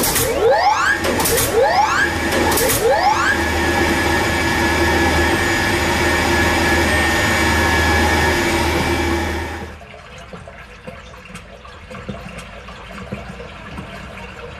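Pump-and-water sound effect from an animated water-supply system. A whine rises in pitch three times in quick succession, then settles into a steady hum with rushing water, and cuts off suddenly about ten seconds in.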